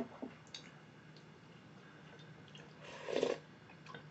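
Quiet eating sounds: a sharp click of a spoon against the soup bowl at the start, a few soft taps, and a short slurp of doenjang-jjigae broth about three seconds in.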